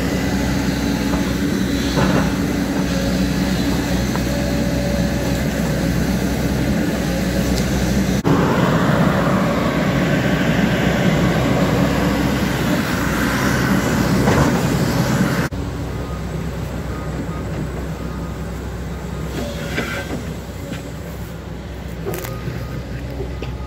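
JCB JS220LC hydraulic excavator's diesel engine running steadily while the machine digs a trench. The sound grows louder about a third of the way in and drops abruptly to a quieter level about two-thirds through.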